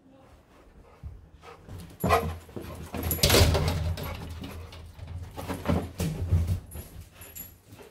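Pitbull-mix dog barking and whining excitedly in several loud spells, loudest about three seconds in, as it jumps around during play.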